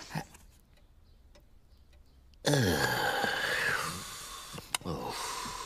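A cartoon character's wheezy vocal groan starts suddenly about halfway through and falls in pitch before trailing off. A sharp click comes near the end.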